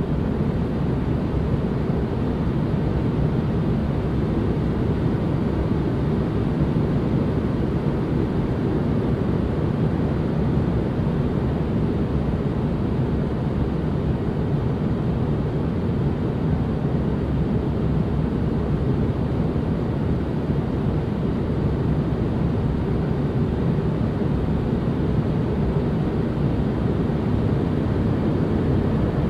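Steady white-noise ambience for relaxation, a smooth, unchanging hiss weighted heavily to the low end, deep and rumbly with little treble.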